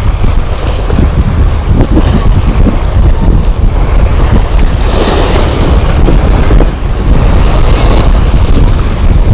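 Strong wind buffeting the microphone over sea waves washing and splashing against a rock breakwater, swelling a little about five and eight seconds in.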